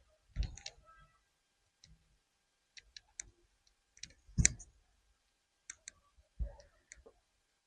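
Plastic body panel of a Can-Am Spyder RT being pressed and worked into place to close a gap: a scatter of separate clicks and knocks, the loudest about four and a half seconds in.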